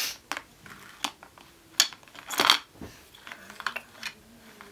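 Scattered light clicks and clacks of hard plastic toy parts being handled: clear plastic containers and the track pieces of a toy marble run being set down and adjusted.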